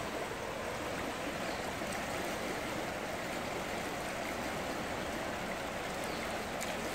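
River water rushing steadily over a fast, choppy shallow stretch.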